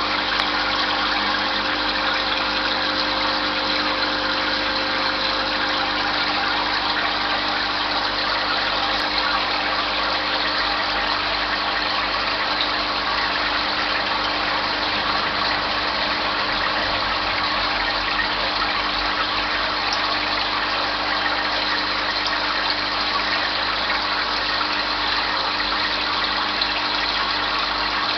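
Aquarium pump humming steadily under a constant rushing hiss.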